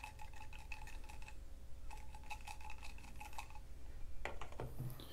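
A pipette stirring baking soda into water in a test tube, clicking against the inside of the tube in two quick runs of light taps with a faint ring, then a few last clicks near the end.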